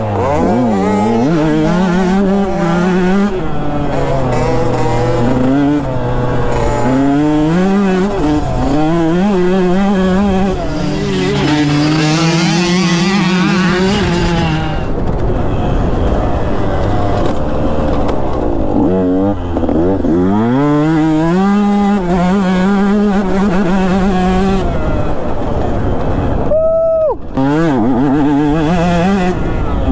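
Two-stroke KTM 150 SX dirt bike engine revving up and down through the gears on a motocross track, with wind on the helmet microphone. For a stretch in the middle the engine heard is another rider's green Kawasaki dirt bike. Near the end the throttle shuts briefly and then snaps up in a sharp rev.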